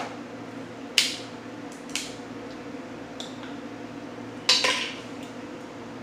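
Crab shell being snapped and picked apart by hand, giving several sharp cracks and clicks. The loudest come about a second in and as a quick cluster at about four and a half seconds.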